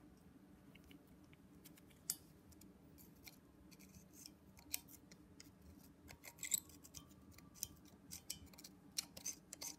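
A pick scratching and clicking faintly inside an injector bore of a BMW N54 aluminium cylinder head, scraping out stuck debris and deposits. The clicks are sparse at first and come more often in the second half.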